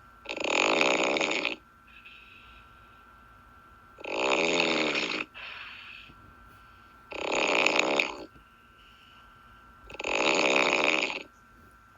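A person snoring: four loud snores about three seconds apart, each lasting just over a second, with fainter breath sounds between them.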